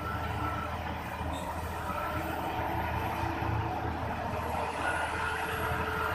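Heavy diesel mining machinery, a large dump truck and an excavator, running with a steady low drone, while a reversing alarm sounds a few short beeps at uneven intervals.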